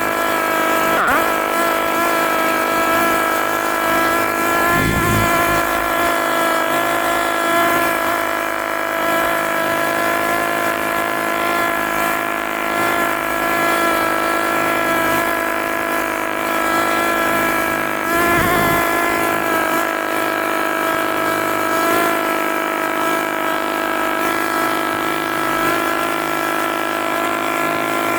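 Engine of a piece of earthmoving equipment running steadily at a constant speed.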